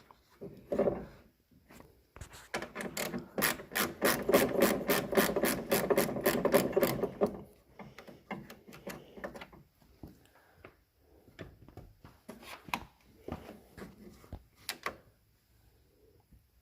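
Hand ratchet with a 5/16 in or 8 mm socket turning a bolt on a truck door handle. Its pawl clicks rapidly and evenly, about five times a second, for several seconds, followed by scattered clicks and knocks as the tool is repositioned.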